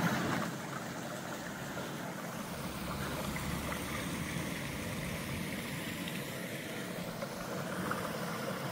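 Steady rushing noise of floodwater draining away through an opened drain cover in a flooded road.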